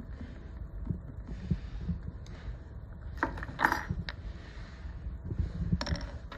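Light metallic clicks and taps of a small screw and screwdriver being handled against the steel needle plate of an industrial sewing machine, the sharpest clicks about three and a half seconds in and near the end, over a low steady hum.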